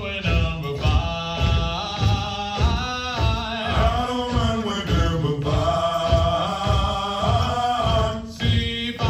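Marine Corps hiking cadence, chanted and sung by voices over a steady beat about two a second.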